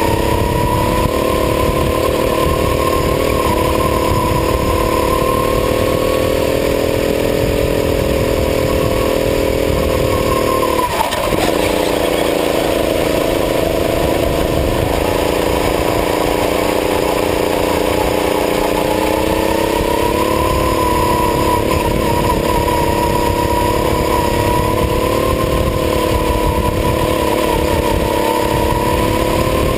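Go-kart engine heard from an onboard camera, running at high revs through a lap. About eleven seconds in its pitch drops sharply as the revs fall, then creeps back up and climbs again around twenty seconds as the kart accelerates.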